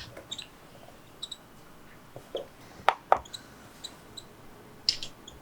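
Faint, short, high peeps from a hand-reared baby parrot, a handful of single chirps spread through. Two sharp clicks in quick succession about three seconds in are the loudest sounds, with a brief rustle near the end.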